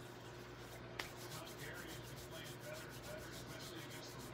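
Hands rubbing quickly together, palms and fingers sliding over one another as in lathering during handwashing; faint, with a single sharp click about a second in.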